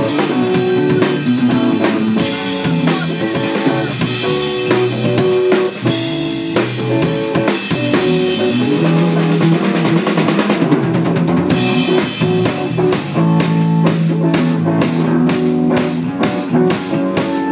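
Rock band playing an instrumental passage, driven by a full drum kit with bass drum and snare over sustained guitar and bass notes.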